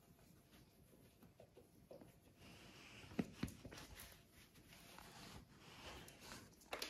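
Quiet room with faint rustling and soft pattering as a puppy moves about on a cork floor, with two short taps about three seconds in.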